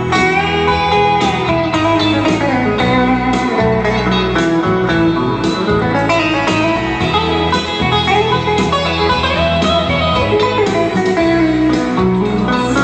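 Electric guitar played live through an amplifier: a lead line with bent, gliding notes over a steady drum beat and bass.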